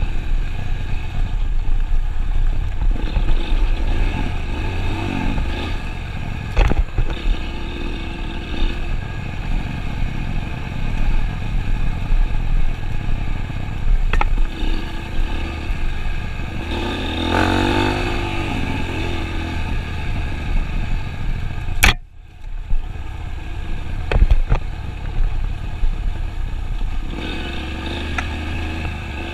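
Vehicle engine running steadily, with occasional knocks and clatter; a sharp click and a brief dip about 22 seconds in.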